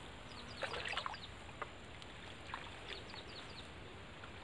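Light splashing and trickling of water as a bamboo lift net is lowered into shallow pond water, loudest about half a second to a second in. Over it, twice, a bird gives a quick run of short, falling high chirps.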